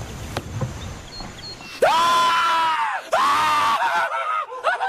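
A young man screaming with excitement: about two seconds in come two long, high-pitched screams of about a second each, then a shorter cry near the end.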